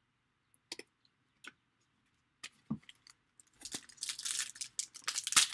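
A few soft clicks of trading cards being handled, then from about three and a half seconds in, dense crinkling of a foil trading-card pack wrapper being picked up and handled.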